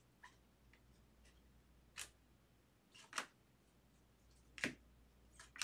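Baseball trading cards being flipped one at a time through a hand-held stack. It gives a few faint, short snaps of card stock, about one every second.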